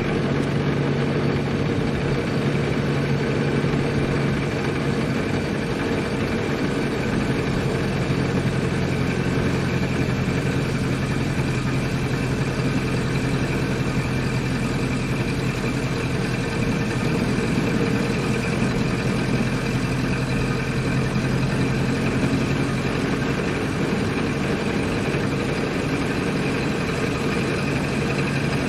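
1928 Ford Model A's four-cylinder side-valve engine running at a steady, even speed as the car is driven.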